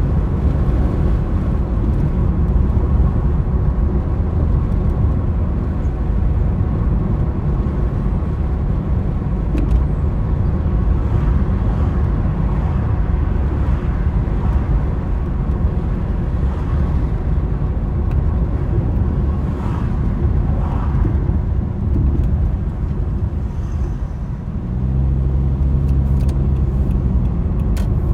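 A car driving, heard as a steady low rumble of road and wind noise. Near the end the noise briefly eases and the low hum of the engine shows through.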